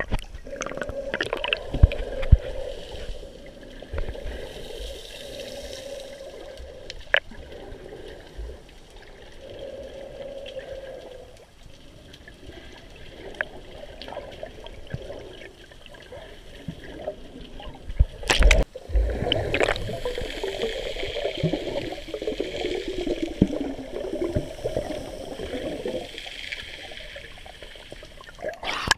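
Muffled gurgling and sloshing of seawater moving around an action camera held underwater, with a few sharp knocks, the loudest about 18 seconds in.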